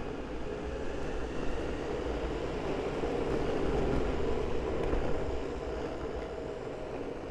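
An electric skateboard rolling along at speed: a steady rumble and hum from the ride.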